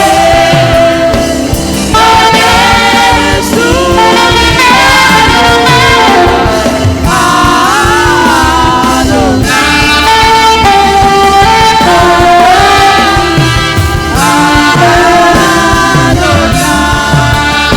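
Live gospel music: a saxophone plays a sliding, ornamented melody over a band with drums and bass, with singing.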